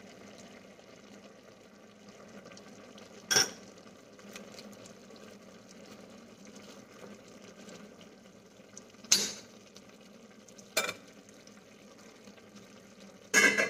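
Stainless steel ladle stirring vegetables in a pot of simmering coconut milk, clinking sharply against the steel pot four times over a faint steady bubbling hiss.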